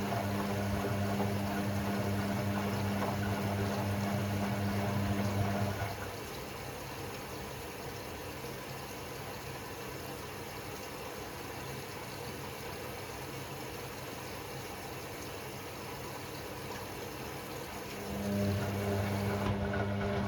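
Hoover Six Sportswear 1300 washing machine taking in water: a steady electrical hum with water rushing runs until about six seconds in and stops, leaving quieter water noise, then the hum and rush start again near the end.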